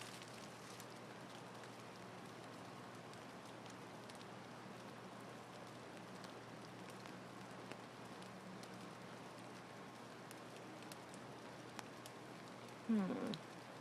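Steady rain falling: an even hiss with scattered faint drop ticks. Near the end comes a short, louder vocal sound.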